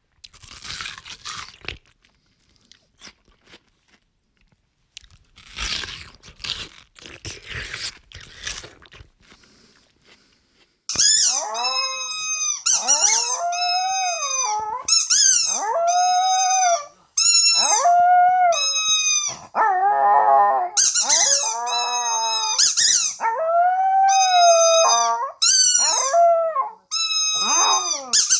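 A dog crunching while eating in a few short bursts, then a dog howling: a long string of loud, short howls, each bending up and down in pitch, about one a second.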